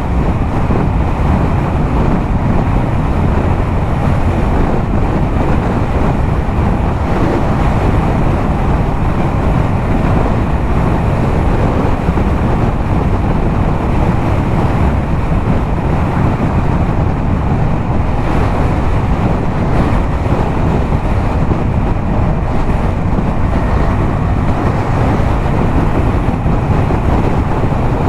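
Yamaha MT-07's 689 cc parallel-twin engine through a LeoVince aftermarket exhaust, cruising at a steady highway speed, heavily mixed with wind rushing over the microphone.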